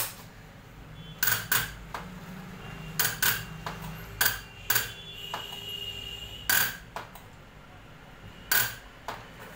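Hand-lever diesel injector nozzle tester being worked: about ten sharp metallic clicks and pops, unevenly spaced.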